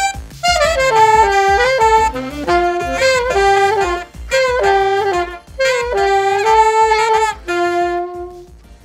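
Saxophone playing a fast, ornamented jazz-style melody in short phrases with brief breaths between them, ending on a held note about seven and a half seconds in that fades away.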